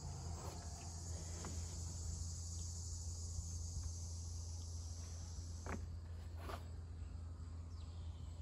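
Steady high insect chorus trilling over a steady low hum, with two short knocks about six seconds in.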